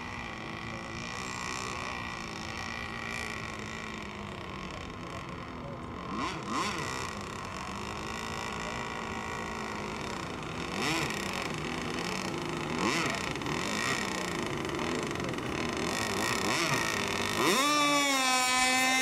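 Radio-controlled racing boat's motor running at speed across the water, its pitch swooping up and down a few times as it turns and passes, then rising sharply near the end into a loud, steady high whine as the boat accelerates close by.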